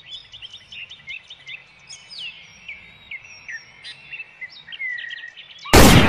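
Small birds chirping and singing faintly in the background, many short calls with quick rises and falls in pitch. Near the end a short, loud burst of noise cuts in.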